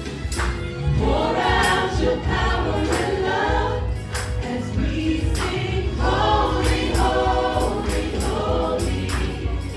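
Choir singing a gospel worship song over a band, with a steady beat of percussion hits.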